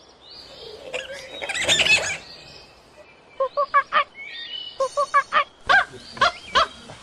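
Birdsong in the background, with a short noisy rustle about two seconds in. From about halfway there is a run of short honking calls, two or three a second.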